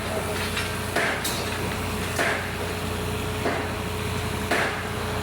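A machine engine running steadily under irregular knocks and scrapes of construction work, roughly one every second.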